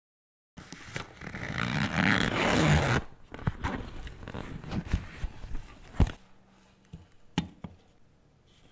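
A zipper on a fabric carrying case being pulled open in one long rasp lasting about two seconds, followed by rustling and handling of a Staresso portable espresso maker, with two sharp knocks as the device is handled.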